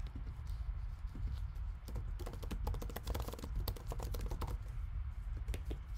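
Typing on a computer keyboard: a quick run of key clicks starting about a second and a half in, thickest in the middle and thinning out near the end, over a low steady hum.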